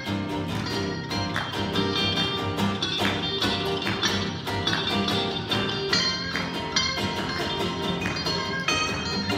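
Instrumental guitar break: an electric guitar plays lead lines over a strummed acoustic guitar rhythm, with no singing.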